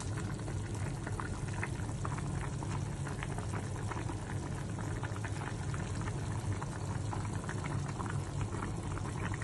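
A wide pan of pork sinigang soup boiling hard: steady bubbling with many small pops, over a low steady hum.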